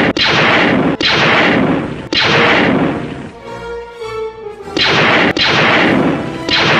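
Handgun shots fired on an outdoor range: about five sharp bangs at uneven intervals, each ringing out for about a second, over orchestral music.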